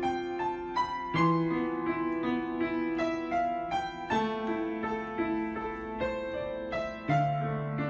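Background piano music: single notes struck a few times a second over held bass notes, with the bass changing about a second in and again near the end.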